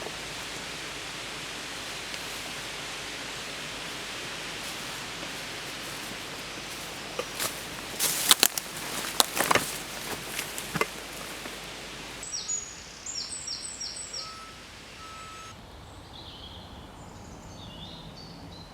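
Steady wind noise through trees, with a cluster of sharp cracks and pops in the middle. After a cut about two-thirds of the way in, birds chirp in short repeated notes over quieter background.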